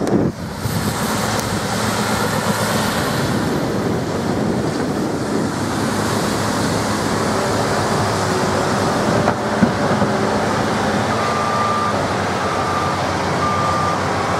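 Heavy construction machinery such as an excavator running steadily, with a reversing alarm beeping about once a second near the end.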